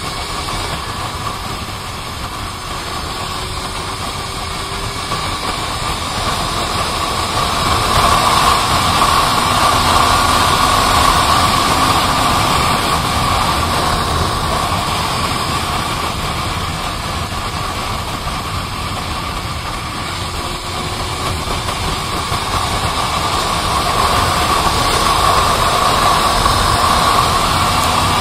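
Motorcycle engine running at highway cruising speed under a steady rush of wind noise, with a constant hum. It grows louder about a third of the way in, eases slightly, then rises again near the end.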